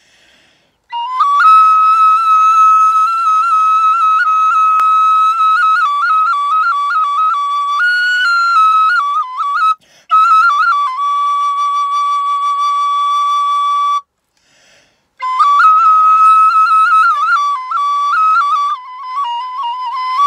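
Kaval, a wooden end-blown flute, playing a melody of long held notes decorated with quick trills and grace notes. It starts about a second in and breaks briefly near ten seconds and again for a breath around fourteen seconds.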